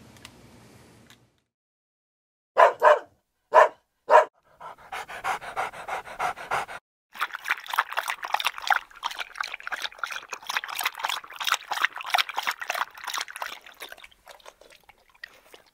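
A dog gives four short yips, then pants quickly for several seconds.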